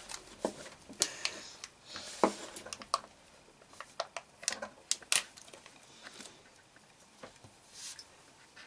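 Foil lid being peeled off a plastic Kinder Joy half-shell, with light crinkling and scattered small clicks of the plastic capsule being handled in the fingers.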